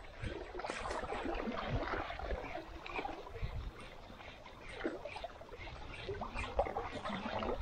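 Sea water lapping and splashing in small irregular bursts, with wind buffeting the microphone.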